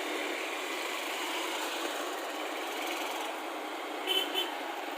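Vehicle engine running steadily, with a short higher-pitched sound about four seconds in.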